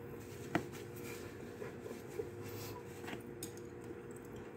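A few small clicks and taps, one sharper click about half a second in, over a steady low hum of room tone.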